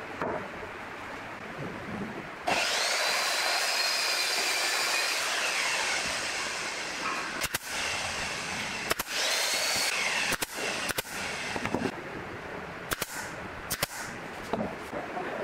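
A nail gun firing nails into a pine frame: several sharp shots spread over the second half. Before them comes a loud whirring hiss that starts suddenly and winds down, with a shorter one in between the shots.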